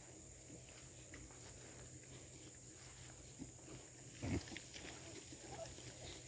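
A pig grunts once, short and low, about four seconds in, with a few fainter pig sounds around it.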